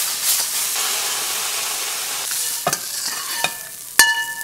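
Crabs sizzling and being stirred in a hot wok, the sizzle dying down after about two seconds. A few scrapes follow, then near the end a metal ladle strikes the wok with a sharp ringing clang, the loudest sound.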